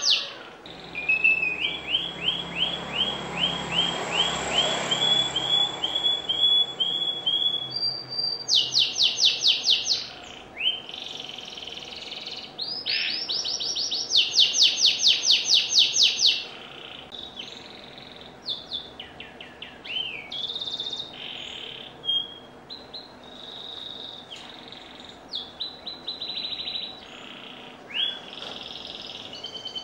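Domestic canary singing: a run of evenly spaced chirps about two a second, then loud, fast rolling trills about nine and again about fourteen seconds in, followed by shorter, softer, varied phrases.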